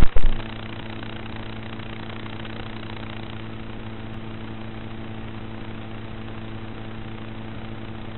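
A few loud knocks as the quadcopter is put down on the grass, then a steady low hum at one fixed pitch with evenly spaced overtones.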